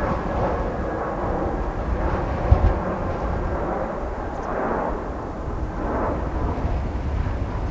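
Airbus A320-200 airliner's jet engines on final approach with landing gear down: a steady, broad roar with a deep rumble. A brief thump about two and a half seconds in.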